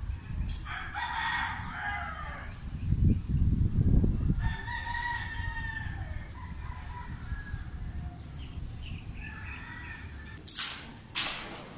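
A rooster crowing three times, each call a couple of seconds long, the last one fainter, over a low rumble that swells about three to four seconds in. A few sharp clicks come near the end.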